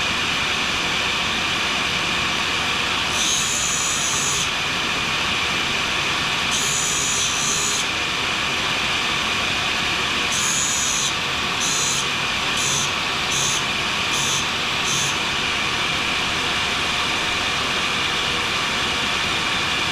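A grinder running steadily while a carbide scraper blade is sharpened on it: three longer passes of high-pitched grinding hiss about three, six and a half and ten seconds in, then six short touches against the wheel in quick succession.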